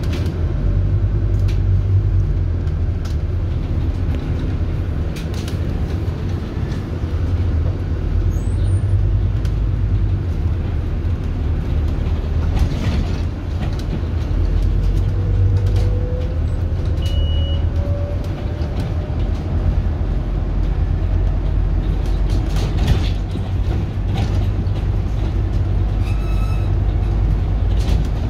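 Inside a Scania articulated city bus on the move: a steady low engine and road rumble, with a faint whine rising in pitch around the middle and a few light rattles and clicks.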